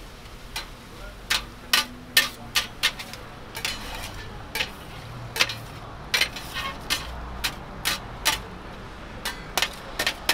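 Metal scraper clacking and scraping on a flat steel griddle as stir-fried noodles and vegetables are tossed: irregular sharp clacks, a few each second, coming faster in the second half.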